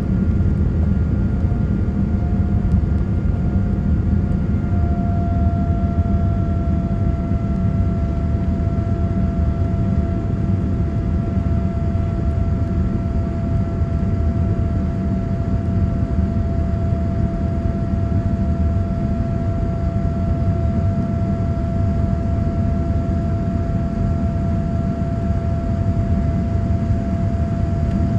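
Boeing 787-9 jet engines and airflow heard from inside the cabin: a steady, even rumble with a constant whine over it, whose pitch settles slightly about five seconds in.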